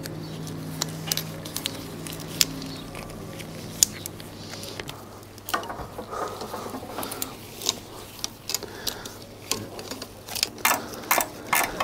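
Scattered light clicks and metallic taps of pliers and small fasteners being worked around a motorcycle's radiator mounting, with a rustling stretch in the middle and quicker clicking near the end. A low steady hum runs underneath for the first few seconds.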